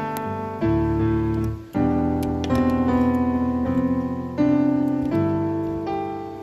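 Background piano music: a slow run of chords, each struck and left to fade before the next.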